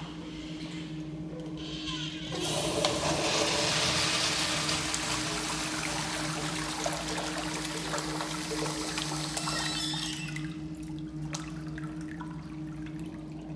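A Kohler Branham urinal flushing: water rushes in suddenly about two seconds in, is loudest for the first few seconds, then runs on more quietly and tails off about ten seconds in as the bowl drains.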